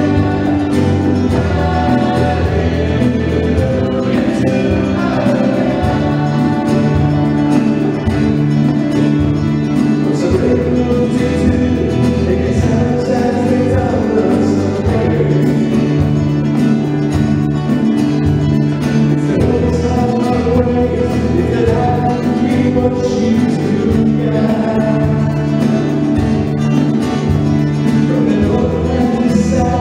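Live worship band playing and singing a praise song: several voices over guitars, keyboard and drums.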